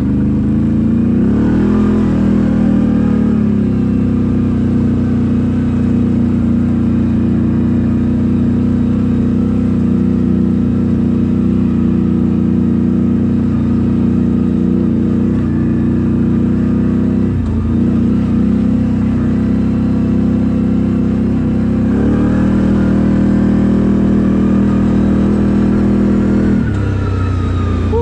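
CFMOTO CForce 1000 ATV's V-twin engine through an Akrapovič exhaust, running loud under throttle. The revs climb about a second in and hold steady, dip briefly about two-thirds of the way through, rise again, then drop back near the end.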